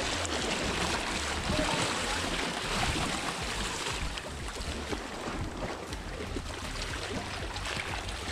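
Steady wash of water with wind, the wind rumbling low on the microphone.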